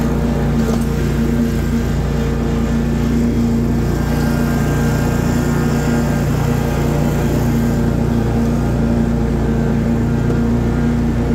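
Stand-on zero-turn mower's engine running steadily as it drives across the lawn mowing, with a constant drone.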